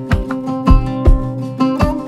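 Background music: plucked string instrument notes over a steady low beat.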